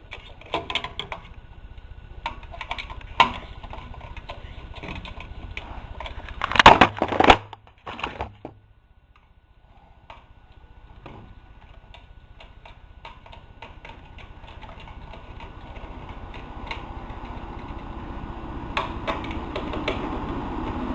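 Small metallic clicks and taps of a quarter-inch nut driver taking the nut screws out of a garage door opener's motor drive board. There is a louder clatter of handling about six to seven seconds in, and a steady noise grows louder near the end.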